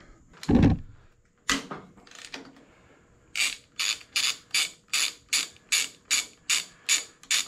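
A ratchet wrench clicking steadily, about two and a half clicks a second, as it works a fork stem nut wrench on a motorcycle's steering stem nut. Before that comes a single dull thump about half a second in.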